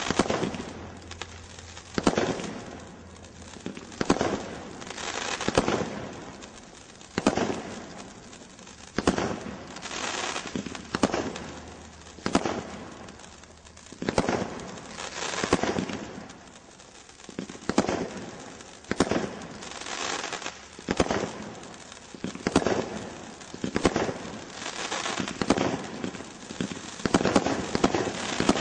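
Night Sky Storm Cat 3 combination Roman candle firing: a sharp shot every one to two seconds, each followed by a hiss and crackle of bursting stars. The shots come faster and the crackling grows denser near the end.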